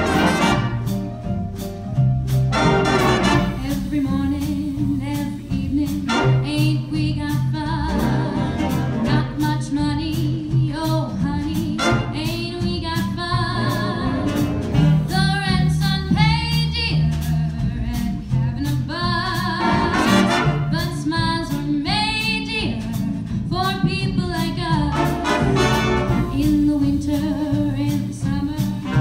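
A jazz big band, with upright bass, piano, drums, saxophones and trombones, plays a swing arrangement while a female vocalist sings the melody, the trombones filling in beneath her line.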